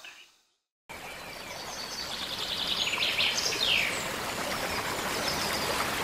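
Steady running-water noise with birds chirping over it, starting abruptly about a second in; a quick run of chirps and a falling whistle come in the middle.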